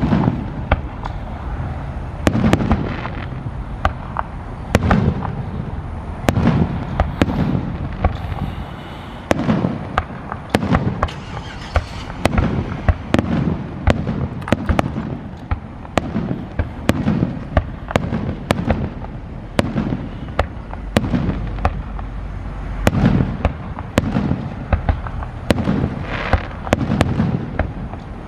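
Aerial fireworks display in full barrage: shells bursting in a steady run of deep booms every second or two, mixed with many sharp cracks and pops.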